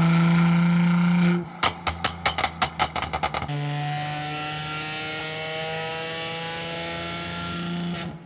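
Mercedes C43 engine and exhaust: held at steady revs, then a quick irregular string of sharp pops and crackles from the exhaust as the revs drop, then a steady engine note whose pitch rises slowly.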